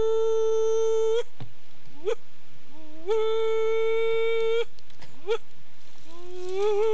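A man imitating a passenger train's whistle with his voice: three long "woo" notes held at a steady, high pitch, with a short rising whoop between each pair.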